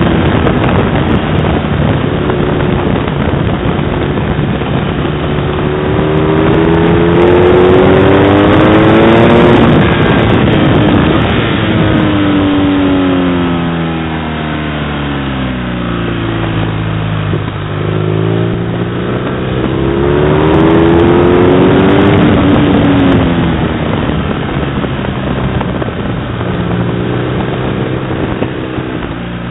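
Onboard sound of a twin-cylinder sport motorcycle at speed on a racetrack: the engine's pitch climbs as it accelerates and drops as it slows for corners, several times over, with wind rushing over the microphone throughout.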